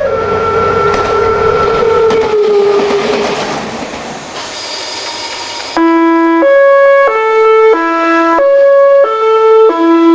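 A Meitetsu 1000-series Panorama Super runs into a station with its horn holding a note that slides slightly down, over rumbling wheel and running noise, followed by a short hiss. About six seconds in, a Meitetsu 7700-series train's musical horn plays its melody loudly, a run of stepped notes about half a second each.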